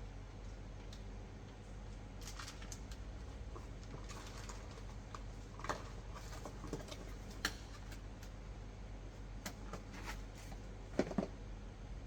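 Faint, scattered clicks and light knocks of small parts and hand tools being handled, the loudest a couple of knocks near the end, over a steady low hum.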